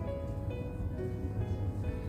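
Soft background music of held, piano-like notes over a low steady hum.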